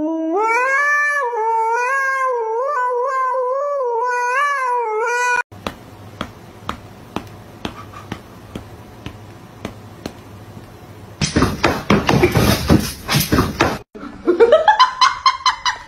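A husky howling into a toy karaoke microphone: one long wavering howl of rising and falling notes for about five seconds, cut off suddenly. After it come a run of sharp taps, a few seconds of loud scuffling noise, and near the end a rising pitched cry.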